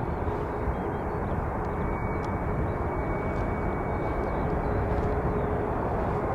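Jet airliner engines running, a steady rushing noise with a faint high whine over it.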